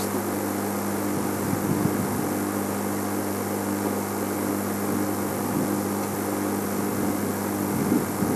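Steady low hum over a constant hiss. Neither the hum nor the hiss changes, and no animal call stands out.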